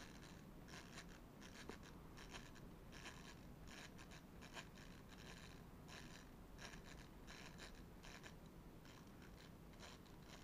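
Faint raspy clicking of a plastic clockwork toy car's wind-up motor as its winding knob is turned, in short scratchy bursts about twice a second. The winding shaft is slipping on the gear it engages, so the motor turns without winding up.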